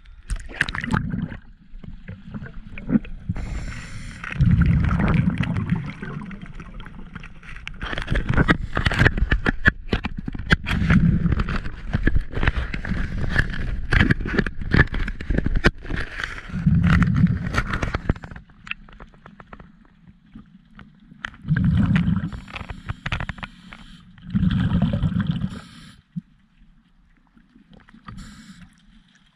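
Water gurgling and sloshing around a submerged camera, with louder surges of bubbling every few seconds and a long run of sharp clicks and crackles in the middle.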